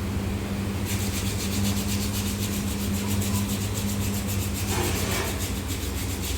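A steady low mechanical hum, with a fast, evenly pulsing rasping noise over it from about a second in.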